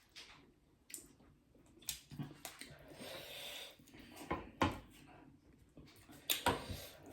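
Quiet eating sounds: scattered light clicks and knocks of plates and dishes, with chewing.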